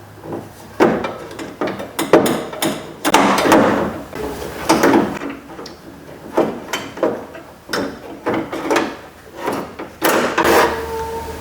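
Irregular knocks, clunks and rattles of the car door handle and tools being worked inside a door shell as the old handle is taken out. A short steady tone sounds near the end.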